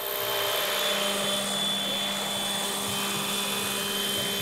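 Electric radio-controlled scale Sikorsky H-5 helicopter on Align T-Rex 500ESP mechanics, with a Scorpion brushless motor and a three-blade rotor head, hovering. Its motor and gears give a steady whine over the rotor noise.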